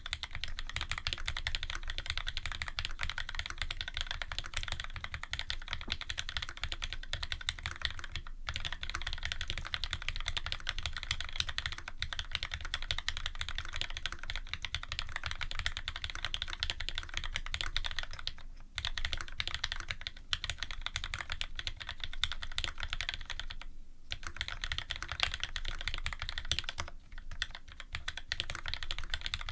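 Continuous fast typing on a custom Special Dolphin mechanical keyboard with lubed Cherry Retooled Black linear switches, an aluminium plate and GMK keycaps: a dense run of key clacks broken by a few short pauses.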